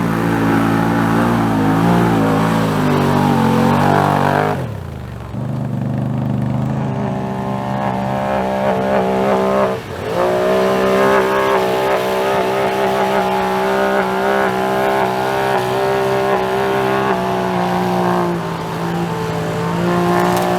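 Side-by-side UTV engine running hard under throttle while mud bogging. The revs drop sharply about four and a half seconds in, then climb again and hold steady and high, with a brief dip about ten seconds in.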